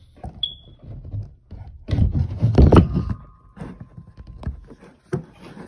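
A phone being handled and set down to record: fingers rub and bump against it close to the microphone, with a run of clicks and knocks. The loudest handling rumble comes about two to three seconds in.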